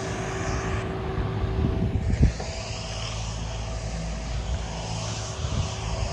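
A road sweeper's engine running with a steady drone and a low rumble, with a single thump about two seconds in.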